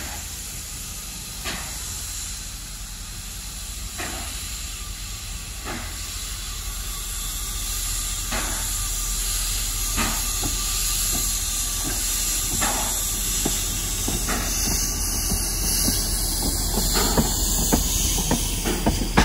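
Px48 narrow-gauge steam locomotive hissing steam, with sharp exhaust chuffs. The chuffs come about two seconds apart at first and gradually quicker, and the sound grows louder.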